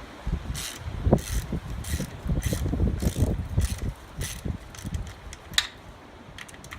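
Socket ratchet being worked back and forth, a short rasp of pawl clicks on each swing, about two swings a second. It is loosening the LS1's transmission-to-engine bolts.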